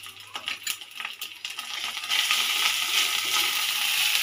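A metal spatula scrapes and taps against a steel kadai as onion and ground-spice masala is stirred in mustard oil. About two seconds in, a loud, steady sizzling starts suddenly and continues.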